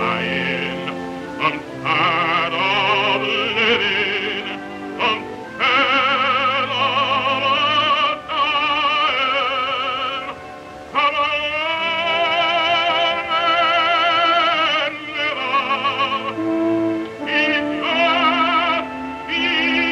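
A solo male baritone voice singing a slow song in long held phrases with wide vibrato, over sustained accompaniment, with brief breaths between phrases. The sound has the narrow, dull quality of a 1929 sound-film recording.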